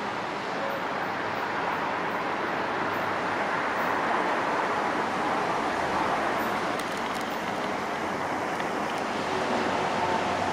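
Docklands Light Railway train approaching along the elevated track into the station: a steady rushing rumble of wheels on rail that grows slightly louder, with a faint whine coming in near the end.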